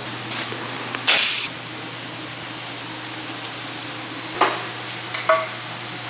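Oxy-acetylene cutting torch flame burning with a steady hiss, used for brazing with brass rod. A few sharp metal clinks come about a second in and twice near the end.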